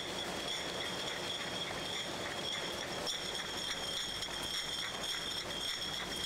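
Bottling line running: glass bottles clatter and clink against each other on the conveyor over a steady high machine whine.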